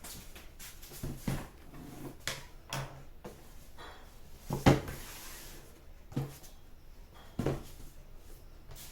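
A series of separate knocks and clunks, like household things being handled or a cupboard or drawer being shut, about seven in all, the loudest about halfway through.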